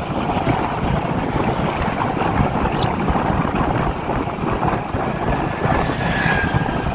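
Steady wind buffeting the microphone over a low road-and-engine rumble, as heard riding on a moving vehicle.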